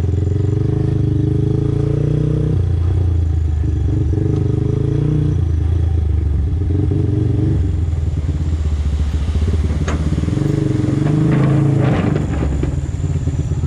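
Motorcycle engine running at low revs while riding, its pitch changing in steps a couple of times. A few sharp clicks and rattles come near the end.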